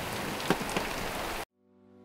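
Rain falling on and dripping off a boat's hard top, with a couple of sharp drip taps about half a second in. It cuts off abruptly about a second and a half in, and soft music with held tones begins fading in.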